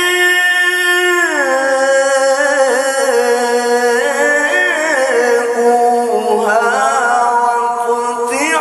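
Male Quran reciter (qari) in the melodic mujawwad style, drawing out one long vowel without a breath. The note drops to a lower pitch a little over a second in, then winds on through wavering ornaments before easing near the end.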